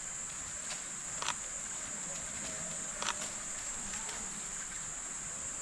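Steady high-pitched drone of jungle cicadas, with a couple of faint clicks about a second and three seconds in.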